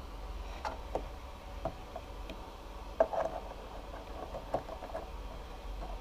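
Light handling clicks and knocks from a 12-volt power plug and phone charging cable being handled at a motorcycle's power outlet, the sharpest about three seconds in, with a cluster of smaller ones after it, over a faint low hum.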